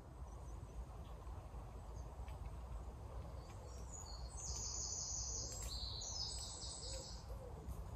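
Woodland ambience: a small songbird sings a high, fast, trilling phrase from about three and a half to seven seconds in, over a low steady rumble.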